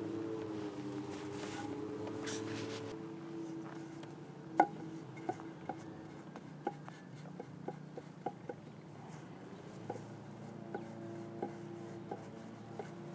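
Quiet background music: soft held low notes, with light plucked notes at an uneven pace from about four and a half seconds in.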